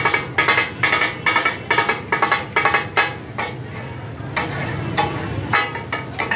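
Two steel spatula blades clanging as they chop and scrape on a large flat iron tawa griddle, the rhythmic 'taka-tak' of katakat being made. The strikes come about three or four a second and thin out to a few spaced clangs after about three and a half seconds.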